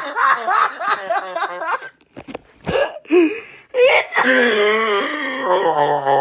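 A person's wheezing laughter: rapid pulsing laughs, a short pause broken by a few sharp gasps, then one long drawn-out laughing cry that falls slowly in pitch.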